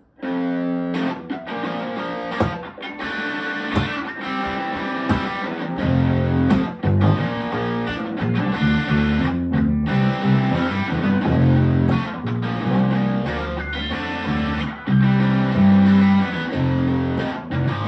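Electric guitar played through a Blackstar Fly 3 mini amp and bass guitar through a Joyo MA-10 mini bass amp, playing a song together. The guitar starts alone, and low bass notes come in about six seconds in.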